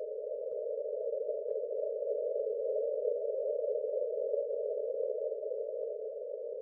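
A soft, narrow whooshing hum that paces the breathing: one long breath-phase cue that slowly swells and then fades. It sits a little higher in pitch than the cue that comes before and after it.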